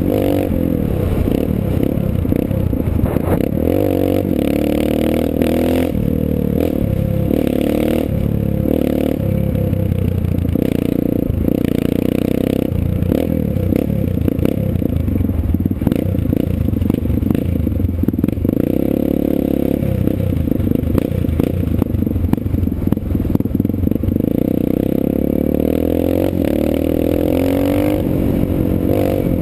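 Dirt bike engine revving up and falling back again and again as it is ridden through the gears, heard from a helmet-mounted camera, with frequent clatter and rattling over the engine.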